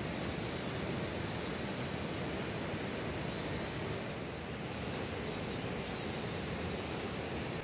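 Steady outdoor rushing noise with no distinct events.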